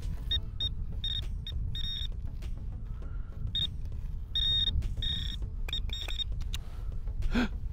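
Garrett handheld pinpointer giving short high beeps in uneven bursts, some single and some held longer, as it is pushed through gravelly sand: it is sounding on a small metal target close by, which turns out to be a ring. A low steady rumble runs underneath.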